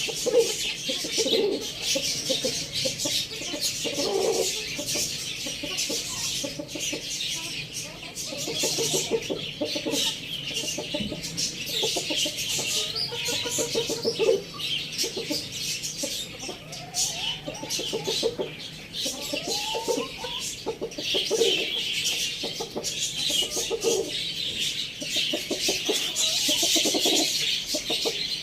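Chickens clucking, many short calls one after another, over a steady high-pitched background hiss.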